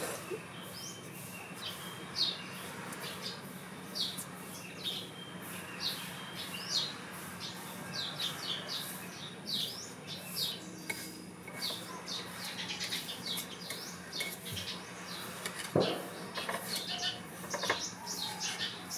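Small birds chirping over and over in quick, short, high notes, with a steady low hum underneath and a single knock about three-quarters of the way through.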